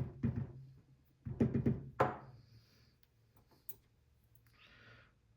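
Sharp knocks of a metal lock cylinder body being tapped against a hard surface to dump its last driver pin: one at the start, then a quick cluster about a second and a half to two seconds in.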